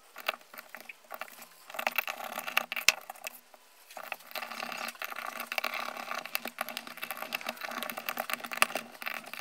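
Light rustling and many small clicks as small screws and star washers are handled and set into a plastic transducer mount, with a brief lull about three and a half seconds in.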